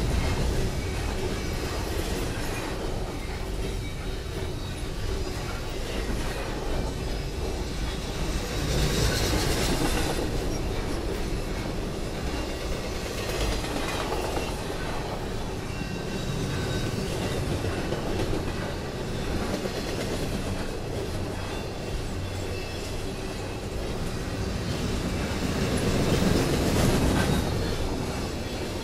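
Norfolk Southern double-stack container train's well cars rolling past: a steady rumble and rattle of wheels on the rails. It swells louder about nine seconds in and again near the end.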